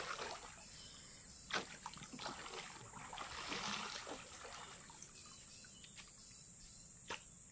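Faint trickling and splashing of river water, with two sharp knocks, one about a second and a half in and one near the end.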